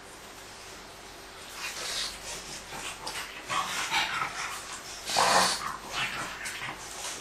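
Pug puppies wrestling in play, making short irregular bursts of dog noises, the loudest about five seconds in after a quiet first second or so.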